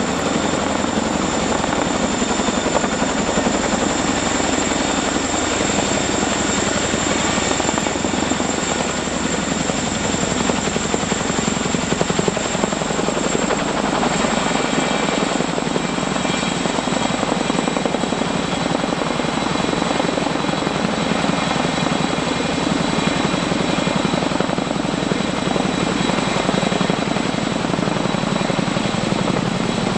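CH-47 Chinook tandem-rotor helicopter hovering low while lifting a water-filled firefighting bucket on a long line: a loud, steady, rapid rotor beat with a high steady whine on top.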